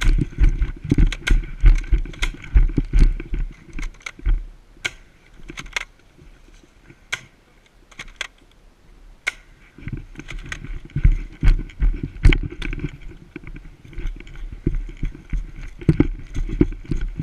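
Running footsteps and gear rattling and rubbing against a body-worn camera, with sharp clicks and snaps scattered through; the thudding eases for a few seconds in the middle, leaving mostly the clicks, then picks up again.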